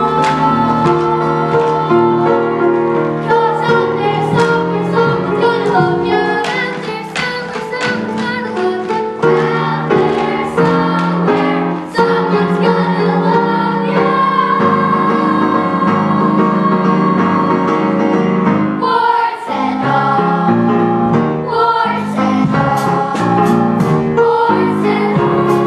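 Voices singing a stage-musical song over instrumental accompaniment, with the melody held in long sustained notes.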